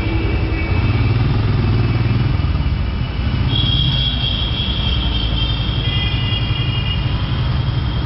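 Royal Enfield Himalayan's single-cylinder engine, fitted with an aftermarket Motowings exhaust, running at low revs with a steady pulsing rumble as the motorcycle rolls slowly.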